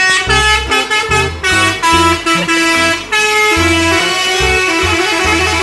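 Background music with a regular bass beat and sustained melody notes.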